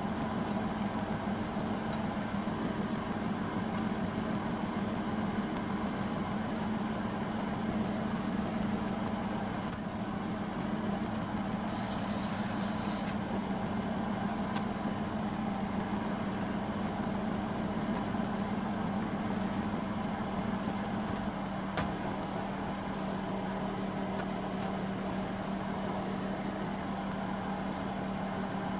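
A steady low mechanical hum whose pitch drops slightly about two-thirds of the way through. A brief hiss comes about twelve seconds in, and a single click near twenty-two seconds.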